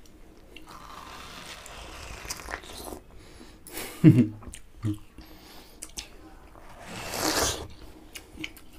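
People biting and chewing juicy watermelon flesh straight off the slices without using their hands: wet crunching and munching, swelling louder briefly near the end. A short vocal noise about four seconds in is the loudest moment.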